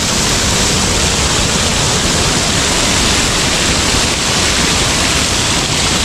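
Stream running across a hill path and cascading off its edge onto rocks: a steady, loud rush of falling water.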